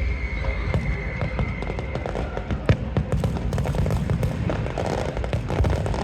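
Daytime fireworks going off: a rapid run of cracks and bangs over a low rumble, with the loudest bang a little under three seconds in.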